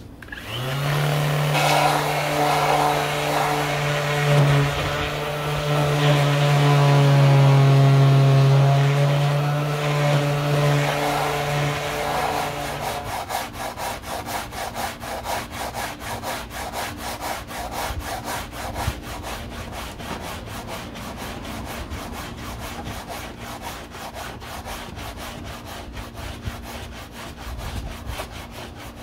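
Electric power tool running with a steady motor hum that sags slightly in pitch under load, then stops about 13 seconds in. After it, quick, even sanding strokes, several a second, rubbing on the cured fiberglass body filler of the slats.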